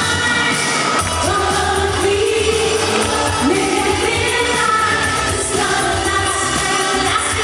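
Freestyle pop song performed live: a female vocal group singing over a dance backing track through an arena's sound system.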